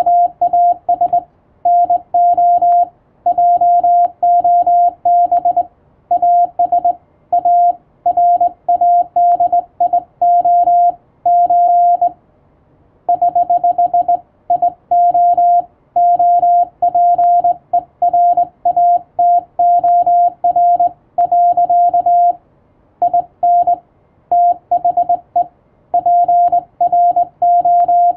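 Morse code (CW) sent as a single steady beep tone, keyed on and off in quick dots and dashes, with longer pauses between groups about twelve and twenty-two seconds in.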